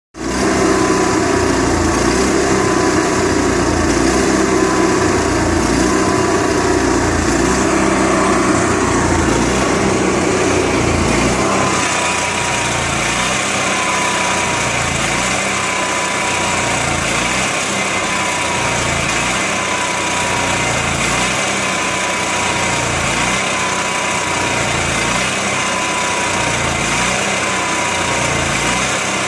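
Onan Microquiet 4000 generator engine running with the rough idle its owner is trying to cure, despite a clean carburettor, new air filter, steady fuel flow and a near-new spark plug. About twelve seconds in the sound changes, and from there it goes unevenly, with a regular rise and fall about once a second.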